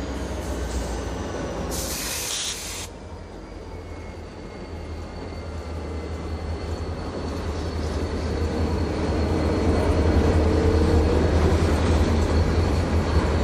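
Freight train rolling by: the deep rumble of its diesel locomotives, then the covered hopper cars running on the rails, getting louder through the second half. A brief hiss about two seconds in.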